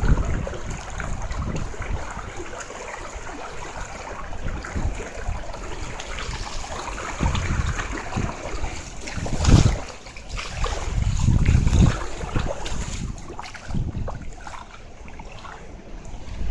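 Typhoon rain and gusting wind with floodwater running along a street. Gusts buffet the microphone in deep rumbles, the strongest about nine and a half seconds in and another swelling around twelve seconds.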